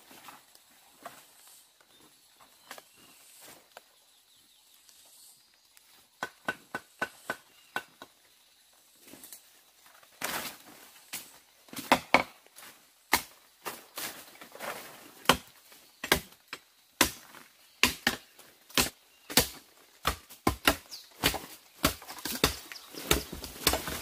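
A bamboo stalk being chopped at its base with a blade. A few lighter strikes come about six seconds in, then hard, sharp chops at about two a second from about ten seconds in.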